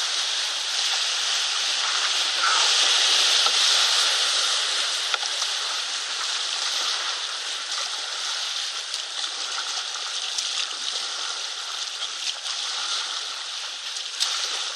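Rushing whitewater churning around an inflatable raft, loudest a few seconds in and then easing, with paddle blades splashing into the water.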